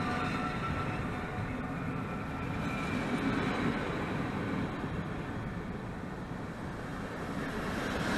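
Passenger coaches of a departing intercity train rolling past close by, a steady rumble and hiss of wheels on rails. A high steady whine fades out over the first couple of seconds.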